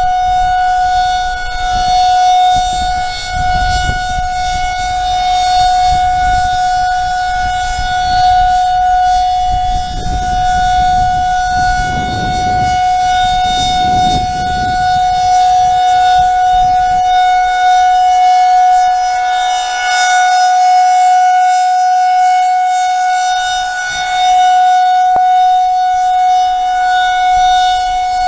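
Outdoor tornado warning siren sounding its monthly test: one steady, unchanging high tone with overtones, its loudness swelling and fading every four or five seconds.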